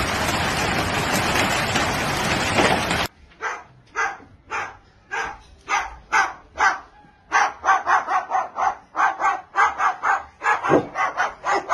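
A loud, steady rushing noise that cuts off suddenly about three seconds in, followed by a dog barking over and over, about two barks a second at first, then faster, about three a second.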